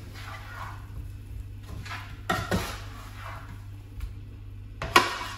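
Kitchen pans and dishes being handled: short scrapes and clatters, with a sharp knock near the end as the loudest sound, over a steady low hum.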